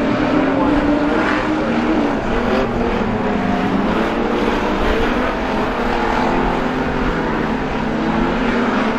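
Several street stock race cars' engines running hard together, their pitches rising and falling as the cars accelerate and lift off through the turns.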